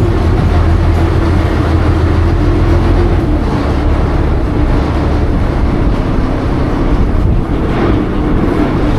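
Ferry boat's engine running steadily: a loud low rumble with a steady hum, the deepest part easing a little about three seconds in.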